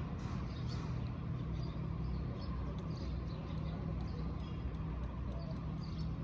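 Deutz diesel engine running steadily at idle, a constant low hum with faint regular ticking over it.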